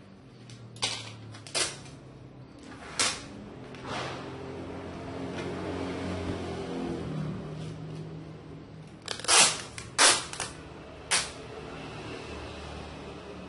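A series of sharp clicks and knocks at irregular intervals, about eight in all, the loudest cluster about nine to ten seconds in.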